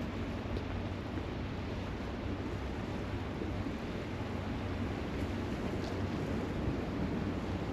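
Steady wind buffeting the microphone, with the wash of waves on the shore beneath it. A few faint ticks rise out of it.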